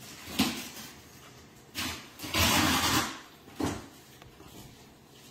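A paper instruction sheet rustling as it is handled and turned over, in four short rustles, the longest and loudest about two and a half seconds in.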